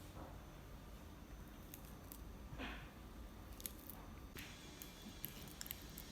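Ripe banana being mashed with a fork: faint soft squishing with scattered light clicks, more frequent in the second half.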